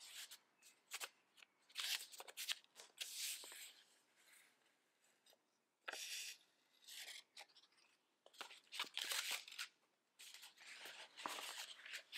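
Faint rustling and scraping of paper and thin kraft cardboard in short bursts, as a paper band is slid off a card package and its flaps are folded open.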